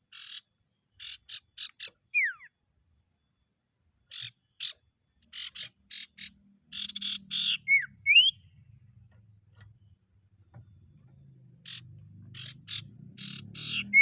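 Sirtu bird calling in full voice: runs of short, rasping chattering notes in quick groups, broken by a few sharp slurred whistles, one falling steeply about two seconds in and one rising about eight seconds in.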